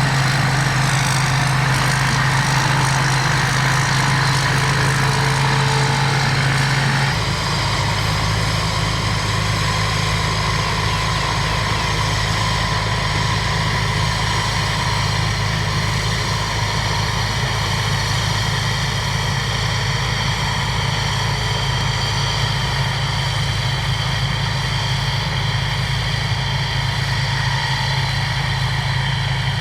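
Engine of a rice combine harvester running steadily as it works the paddy, a constant low hum with a whirring hiss above it. The engine note changes and the level drops slightly about a quarter of the way through.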